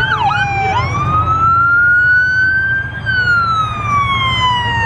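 Police car siren: a couple of quick yelps, then a slow wail that rises for about two seconds and falls again, over a steady low rumble.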